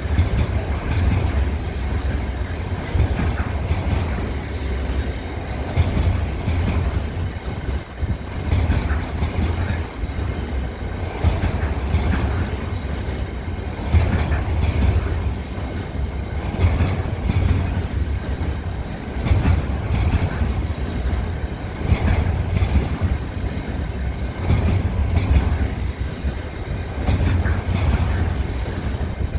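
Wagons of a long container freight train rolling past, a steady low rumble with the wheels clattering over the rail joints and a light squeal now and then.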